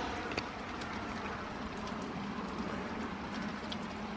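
Steady rain falling, with a few faint drips ticking.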